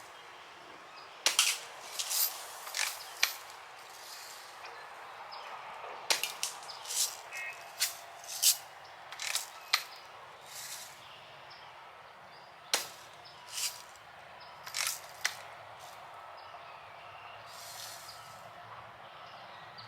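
Daisy Adult Red Ryder lever-action BB gun being cocked and fired again and again: an irregular string of sharp snaps and clicks, some in quick pairs, with a few softer rasping strokes between them.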